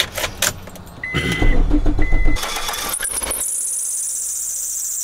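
A 2001 Mazda 626 being started: key clicks and two short beeps, then the engine cranks and catches. A couple of seconds in, the running engine gives a steady, extremely loud high-pitched whining screech from its accessory drive belts, which the owner blames on a worn belt and first suspects the power steering belt.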